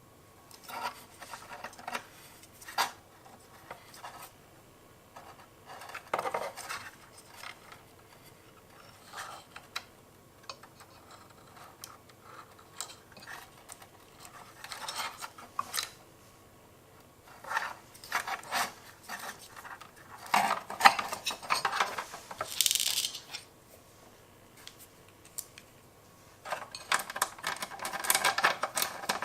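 Irregular metallic clicks, clinks and scraping from small metal parts and tools being handled while the Rigol DP832 bench power supply is worked on for its fan swap. There are quiet gaps, and busier clattering about two-thirds of the way through and again near the end.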